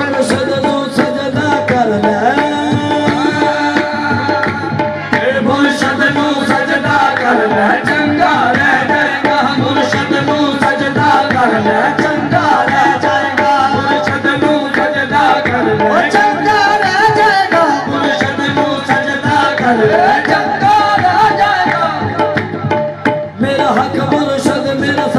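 Qawwali music: a harmonium melody over steady tabla drumming, with a brief drop in level near the end.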